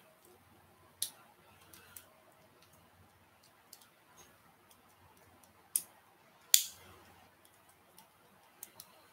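Irregular small plastic clicks and snaps from a Bakugan figure's hinged parts being folded by hand into its ball form, with two sharper snaps a little past the middle, the second the loudest.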